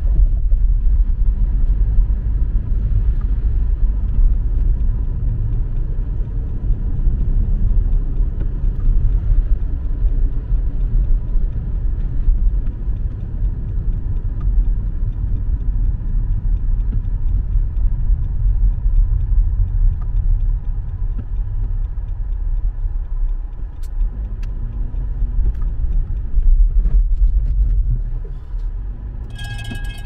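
Car driving, heard from inside: a steady low rumble of engine and tyre noise. Just before the end comes a short electronic tone.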